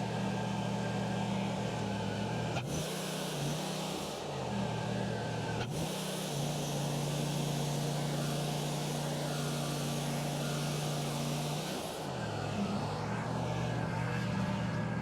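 Wood-Mizer LT40 portable band sawmill running under its engine, which holds a steady note. Twice the engine note drops and a high, even hiss joins it as the band blade cuts through the log: briefly about three seconds in, then for about six seconds from around six seconds in.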